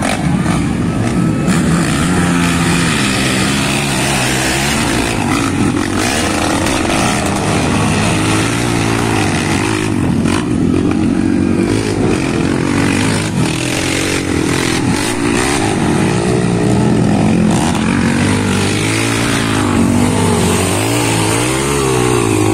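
ATV (quad bike) racing engines revving hard, the pitch climbing and falling again and again as the riders open and close the throttle through the turns.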